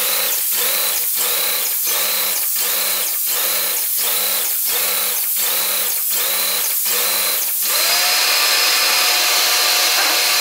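Wagner Control Pro 250M airless paint sprayer running and spraying, a loud hiss that pulses about twice a second. About eight seconds in, the pulsing stops and it becomes a steady, unbroken whine.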